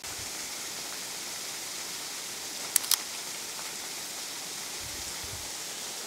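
Steady hiss of falling water from a low-flowing waterfall. Near the middle, two quick clicks about a tenth of a second apart, the camera's shutter firing.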